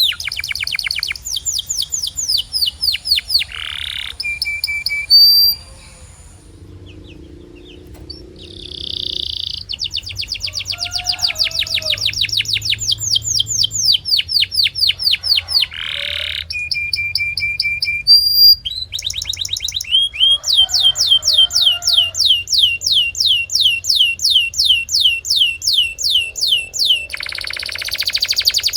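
Domestic canary singing: long, fast trills of rapidly repeated sweeping notes, broken by a few short pauses and brief single notes.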